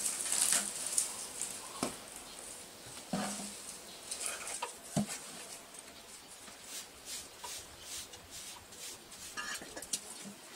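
Dry hay rustling and crackling in irregular bursts as it is handled and pressed down into a wooden bale box, with a few sharper clicks.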